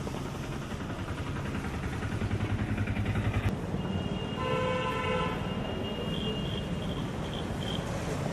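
Road traffic: a vehicle engine running, growing louder over the first three and a half seconds, then a vehicle horn sounding for about a second, followed by a few short high beeps.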